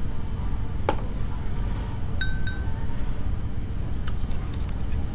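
Steady low rumble, with a sharp click about a second in and two quick ringing chime-like tones a little over two seconds in.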